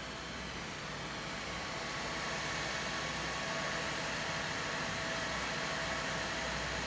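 3D printer's laser engraving toolhead at work: a steady whirring hiss from its cooling fan with faint motor whine tones, growing a little louder about two seconds in.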